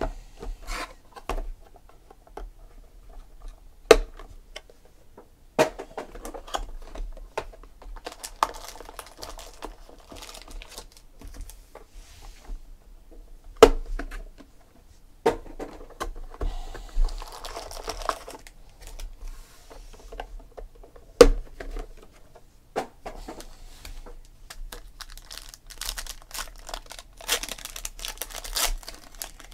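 Trading-card boxes and packs being handled on a tabletop: several sharp knocks as boxes and stacks of packs are set down, and plastic-foil pack wrappers crinkling and tearing open, the longest crinkling near the end.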